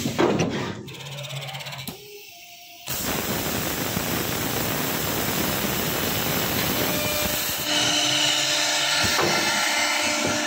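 CNC panel drilling and milling machine starting a machining cycle. After a few clicks and a low hum, a loud steady machine noise from the spindle and dust extraction starts suddenly about three seconds in. It changes in tone about eight seconds in, with a steady low tone added.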